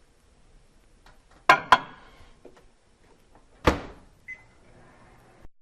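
Microwave oven being loaded and started: two sharp clicks, then a knock as the door shuts, a short keypad beep, and the oven starting to run with a low steady hum that cuts off abruptly.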